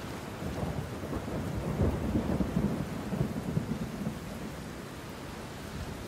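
A low, crackling rumble, swelling about half a second in, loudest around two to three seconds, and easing off after about four seconds.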